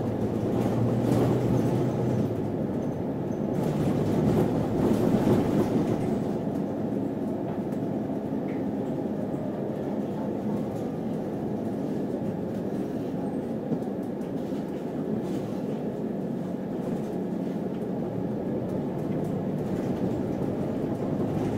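Steady engine and road noise inside a moving city bus, with a low hum underneath, a little louder for a couple of seconds about four seconds in.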